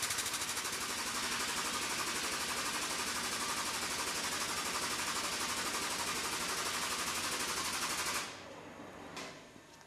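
Hydraulic pump driving a ram that presses a locomotive boiler flue onto a swaging plug: a fast, steady chattering that stops suddenly about eight seconds in, followed by a single click about a second later.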